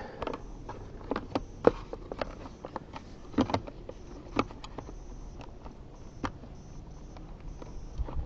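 Scattered light knocks and clicks at an irregular pace, the loudest a little under two seconds in and around three and a half seconds in, over a low steady background: the sound of equipment being handled.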